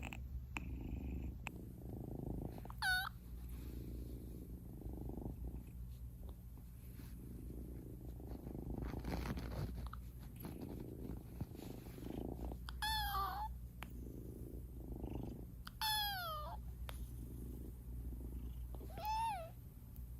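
Munchkin kitten purring steadily, with four short high mews that fall in pitch: one about three seconds in and three more in the last eight seconds.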